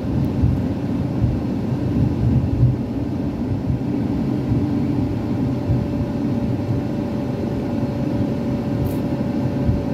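Steady low rumble of engine and road noise heard inside a moving vehicle's cabin. A faint steady whine joins about halfway through.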